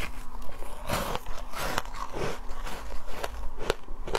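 Biting and chewing foam ice: an irregular run of short, crackling crunches with a few sharp cracks.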